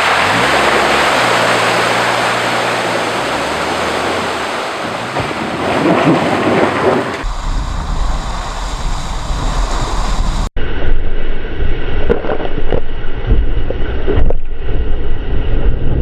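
A Subaru's engine revving hard as it drives through a mud pit, with tyres churning and mud and water splashing in a loud rush, and wind buffeting the microphone. The sound shifts abruptly twice, about seven and ten seconds in, with a brief dropout at the second change.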